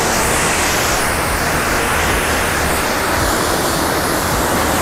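High-pressure water spraying steadily from a bin-cleaning truck's pressure washer onto the outside of a garbage bin, with the truck's pump machinery running underneath.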